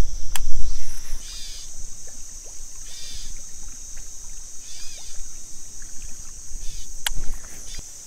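Crickets shrilling steadily while a topwater lure is twitched back across the water, with soft splashes and slosh every second or two. There are two sharp clicks, one about half a second in and one near the end.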